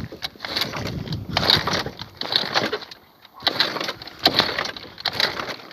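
50cc scooter being kick-started over and over, about one stroke a second, turning over without catching, with heavy breathing from the effort. There is a short pause about three seconds in.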